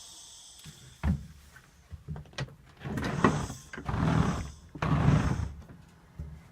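Knocks and heavy thumps of someone getting off a school bus: a sharp knock about a second in, then three heavier thumps about a second apart, like steps on the bus stairs and the door being handled.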